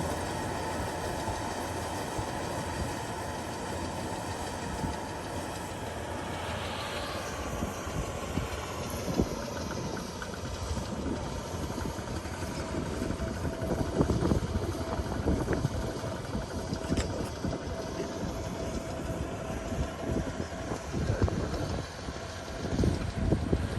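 Kubota rice combine harvester running steadily, with a shift in its pitch about seven seconds in and scattered knocks and rattles through the second half.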